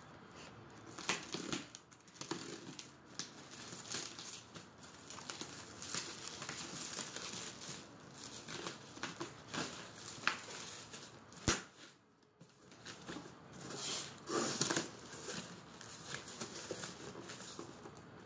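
Black plastic wrapping being torn and crumpled off a cardboard parcel by hand, with cardboard flaps rustling as the box is opened. The rustles come irregularly, with one sharp snap partway through.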